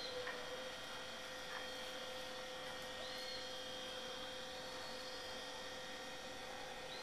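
Faint steady hum made of several steady tones, with a short high chirp about every three seconds.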